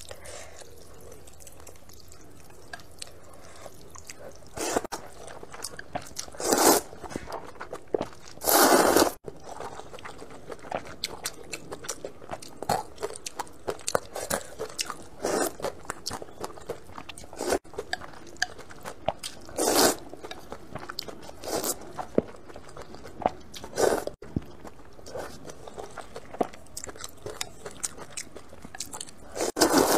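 A person eating spicy snail noodles: close chewing with many small clicks and smacks, broken about six times by loud slurps of noodles lasting under a second each.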